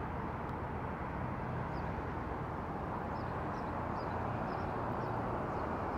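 Outdoor street ambience: a steady hum of road traffic, with a few faint high chirps.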